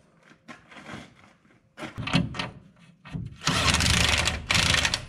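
Impact wrench run in bursts on the new leaf-spring U-bolt nuts, snugging them down: a short rattle about two seconds in, then two longer loud runs near the end, with clicks of the socket and tool being handled between them.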